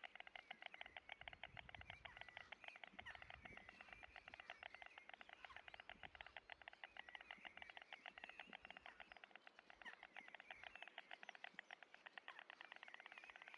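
Two adult white storks clattering their bills at the nest: a fast, unbroken run of dry clacks.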